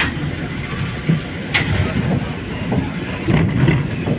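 Road noise from a moving vehicle in city traffic: a steady low engine and tyre rumble, with short rattles and knocks at about a second and a half in and again after three seconds.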